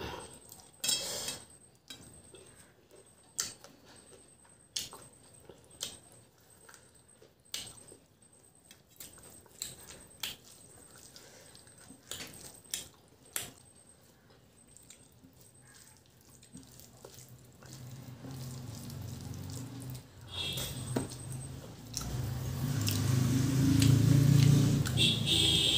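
Close-up eating sounds: short scattered clicks of mouth and fingers as rice and curry are mixed by hand on a steel plate and eaten. In the last third a low hum swells up and is loudest near the end, louder than the eating.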